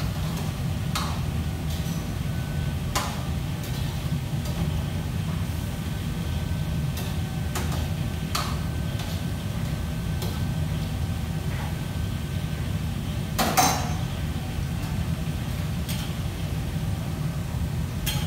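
Kitchen work sounds: scattered clinks and knocks of utensils and dishes over a steady low hum, with the loudest knock about thirteen seconds in.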